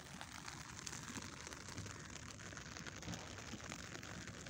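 Rain falling steadily: an even hiss made of many fine drop ticks.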